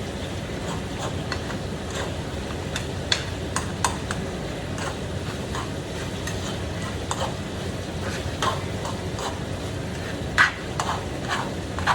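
Food sizzling in a frying pan with a steady hiss, while a cooking utensil stirs and clinks against the cookware now and then. The loudest clink comes near the end.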